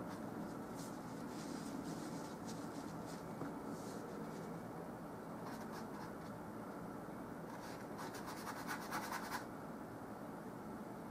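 Oil-paint brush strokes scratching across a canvas, a scatter of short strokes followed by a quick run of rapid scrubbing strokes about eight seconds in, over a steady low hiss.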